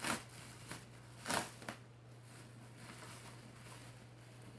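Plastic bubble wrap being handled and unwrapped: crinkly rustles, with two louder crackles at the very start and about a second in, and a few smaller ones between.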